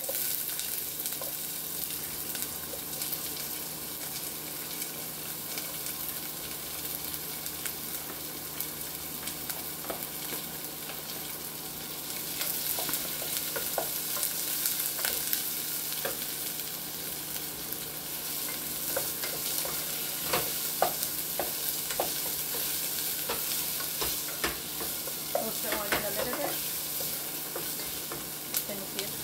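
Chopped onions sizzling as they sauté in a hot pot, with a wooden spatula scraping and knocking against the pot as they are stirred. The sizzle grows louder partway through.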